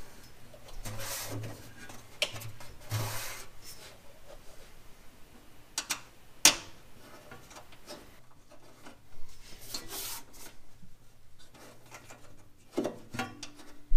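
Hands rubbing and scraping against parts around a sheet-metal bracket, in short irregular bouts, with one sharp click about six and a half seconds in.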